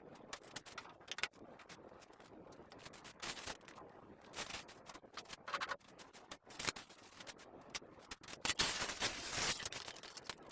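Kitchen handling sounds: scattered clicks, taps and knocks of utensils and dishes being handled, with a short stretch of steady hiss about eight and a half seconds in.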